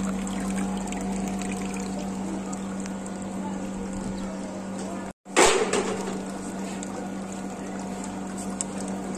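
Water trickling into an open water-cooler tank through its float valve, over a steady low hum. About five seconds in the sound cuts out for a moment, then returns with a sudden loud burst of noise that fades within half a second.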